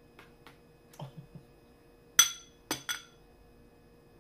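Metal spoon clinking against a glass bowl while scooping taco meat: a few light taps, then a sharp ringing clink about two seconds in, followed quickly by two more.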